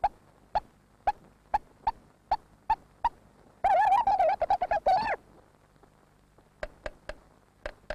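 Cartoon hedgehog hiccuping: a run of short, sharp hiccups, about two a second, broken off by a loud warbling, wavering pitched sound lasting about a second and a half, then a few more hiccups near the end.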